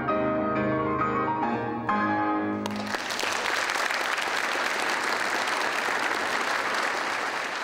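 Last notes of piano music, then an audience applauding, starting abruptly about three seconds in and fading near the end.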